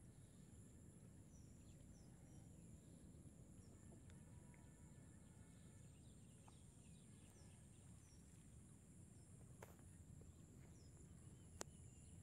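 Near silence: faint rural ambience with a steady high whine, a few short, high falling bird chirps, and two sharp clicks near the end, the second louder.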